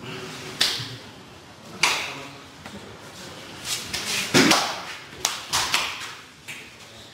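Sumo wrestlers training: sharp slaps and thuds of bare skin and feet, one about half a second in, another near two seconds, then a quick cluster between four and six seconds, the loudest about four and a half seconds in, each ringing briefly in the room.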